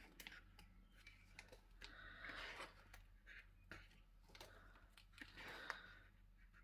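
Near silence with faint rustles and light taps of sheets of decorative paper being handled and leafed through.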